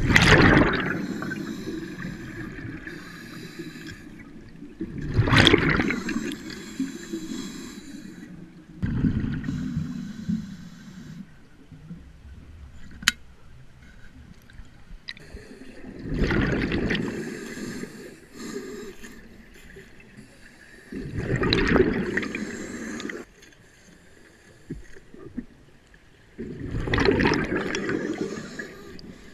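Scuba diver breathing through a regulator: a loud bubbling rush of exhaled air about every five seconds, six times, with quieter water noise between breaths.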